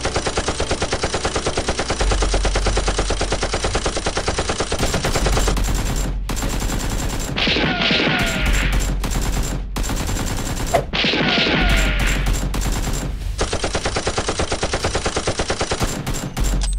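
Dubbed automatic gunfire sound effect: long runs of rapid, evenly spaced shots with a few short breaks.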